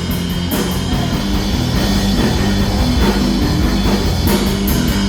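Live rock band playing an instrumental passage with no vocals: distorted electric guitar, bass and a drum kit with regular cymbal crashes.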